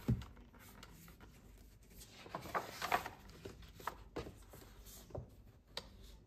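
Paper pages of a colouring book being leafed through and handled: soft rustles with small irregular crackles, a cluster of louder page sounds a few seconds in.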